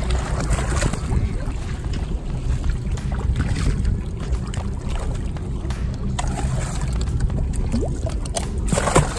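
Steady low rumble of a fishing boat's engine, with water splashing as a hooked shark thrashes at the surface beside the hull. A sharp splash or knock comes just before the end.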